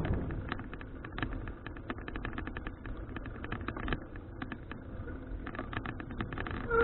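Irregular clicking and rattling from a folding bicycle being ridden, over a low rumble of tyre and wind noise.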